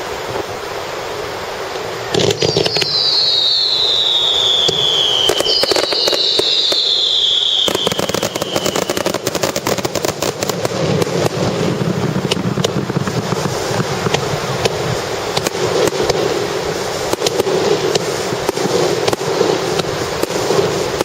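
Fireworks starmine (rapid-fire barrage): two whistling shells, each a falling whistle, about two and five seconds in, then from about eight seconds on a dense, continuous run of bangs and crackles.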